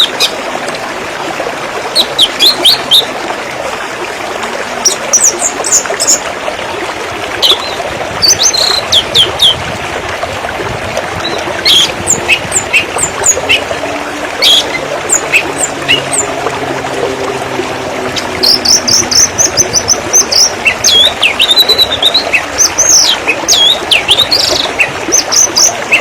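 River water flowing in a steady rush, with songbirds chirping and whistling over it, more busily in the last third.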